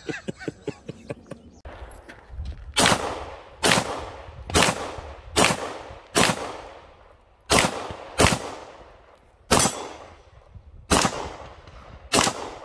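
Semi-automatic pistol fired about ten times at an uneven pace, roughly a second apart with a few longer pauses. Each shot is a sharp bang with a short fading tail. The last shot empties the magazine and the slide locks back.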